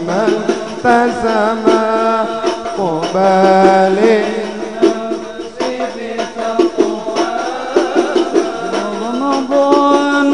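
Banjari hadrah music: terbang frame drums beating a steady rhythm under a drawn-out melody line that glides and wavers without words, in the interlude between sung verses.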